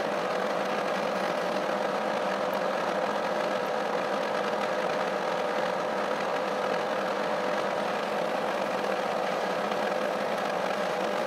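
1K62 lathe running steadily, its gear drive humming with constant tones, while the cutting tool takes a roughing cut on a shaft built up with weld metal.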